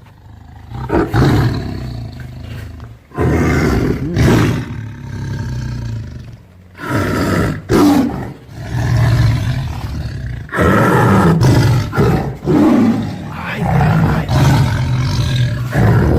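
Tiger giving a series of low growling roars, about six bouts of one to three seconds each with short pauses between them.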